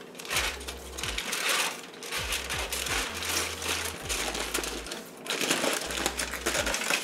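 Aluminum foil crinkling and rustling as it is peeled off a baking pan and bunched up by hand, with a brief lull about five seconds in.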